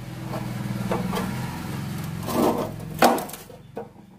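Knocks and clinks of gas stove parts and tools being handled and set down, the sharpest knock about three seconds in, over a steady low hum.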